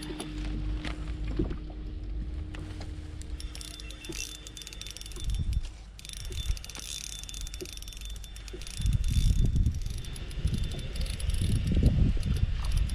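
Spinning reel being cranked on a fishing rod, its gears whirring and ticking. About nine seconds in, a loud low rumble of wind buffeting the microphone sets in.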